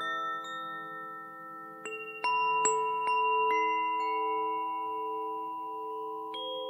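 Nada wind chime ringing, a few tuned notes struck in quick succession about two seconds in and again near the end, each note ringing on and overlapping the others.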